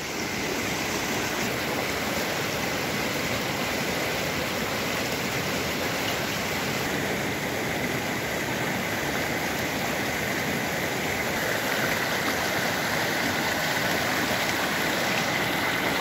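Rushing mountain stream of glacial snowmelt, a steady rush of water tumbling over rocks.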